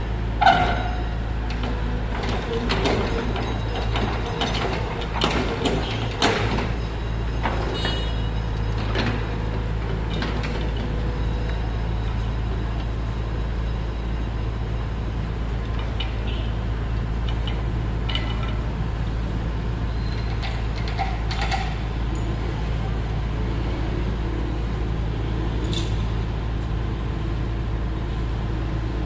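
Komatsu excavator's diesel engine running steadily, with scattered knocks and clatter from work over the first ten seconds or so and a few more later.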